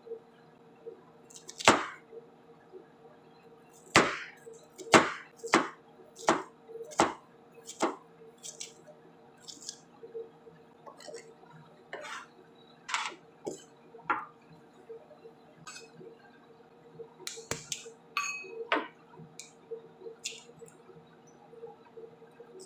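Kitchen knife chopping vegetables on a cutting board: a run of sharp chops, about one every three-quarters of a second, then lighter scattered knocks and a short metallic clink near the end. A steady low hum runs underneath.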